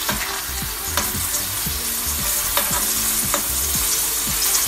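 Ground beef sizzling in a lot of rendered fat in a stainless-steel skillet, with the repeated scrapes and clicks of a spatula stirring it against the pan.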